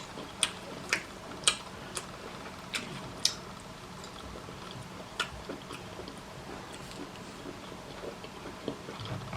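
Quiet eating sounds: chewing, with a run of sharp clicks and taps, about seven in the first few seconds and fainter ones after, over a faint steady hum.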